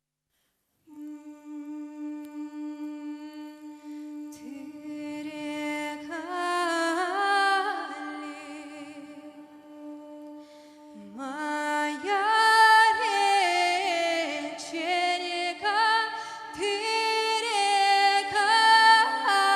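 Young singers' vocal ensemble humming a wordless a cappella introduction. A single held low note comes in about a second in, higher voices join in harmony a few seconds later, and the ensemble grows fuller and louder about eleven seconds in.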